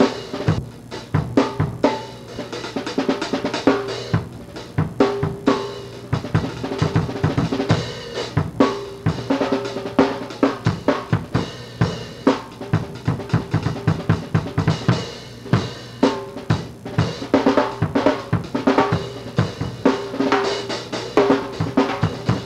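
Drum kit being played in a steady, busy beat: bass drum and snare strokes with cymbal hits.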